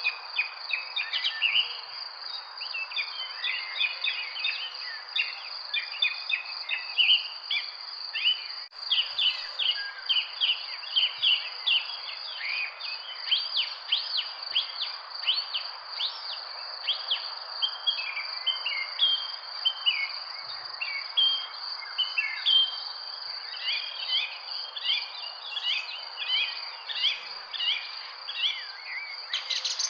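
Many birds chirping and singing in a dense, continuous chorus of quick notes, over a steady high-pitched insect drone. A single sharp click about nine seconds in.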